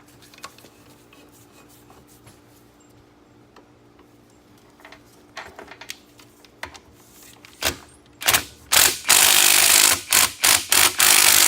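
Impact tool running on the universal joint, driving a bearing cap out through the drive shaft yoke: light clicks and taps, then from about eight seconds in a loud long run followed by short stop-start bursts.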